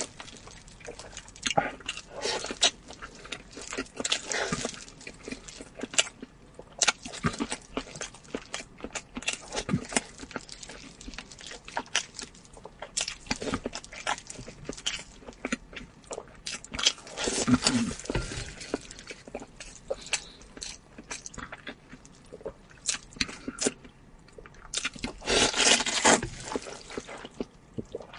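Close-miked eating: wet chewing and lip smacks in quick, irregular clicks, with a longer, louder stretch of slurping near the end as glass noodles are sucked in.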